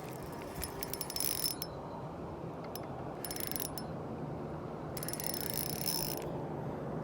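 Shimano Sienna ultralight spinning reel clicking in three short runs of rapid clicks as a fish is played on the line.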